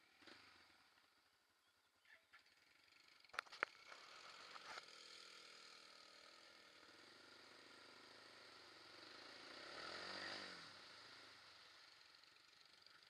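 Quad bike (ATV) engine running faintly on a trail ride, its revs rising to a peak a little past two-thirds of the way through and then easing off. Two sharp clicks come about three and a half seconds in.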